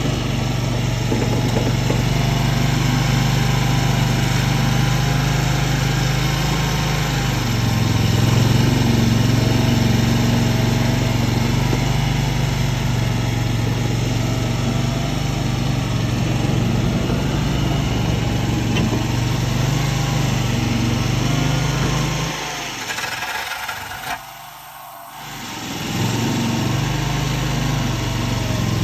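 Tracked mini skid steer's engine running steadily under load, its pitch rising a little about a quarter of the way in. Near the end the engine sound falls away sharply for about three seconds, then comes back up.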